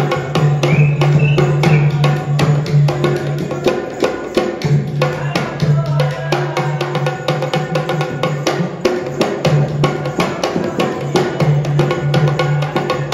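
Music for a Rajasthani kathputli puppet show: a hand drum beaten in fast, dense strokes over a steady low drone, with a few short pitched lines above.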